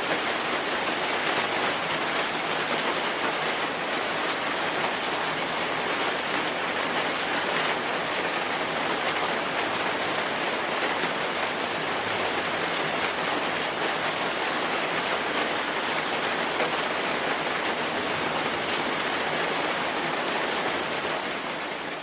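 Rain falling steadily, an even, dense patter of drops with nothing else heard; it begins to fade out at the very end.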